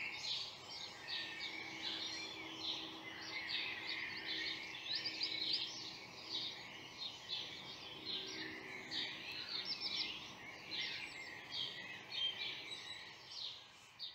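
Dense chorus of many small songbirds singing and chirping at once, calls overlapping without a break.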